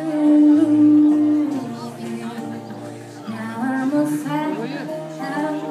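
Acoustic band music with singing: a sung note held through the first second and a half, then the voice and instruments carrying on between lines.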